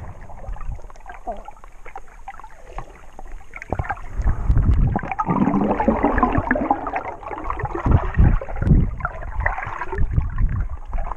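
Muffled water movement heard underwater while swimming: sloshing and gurgling, with irregular low thumps that grow louder and busier about halfway through.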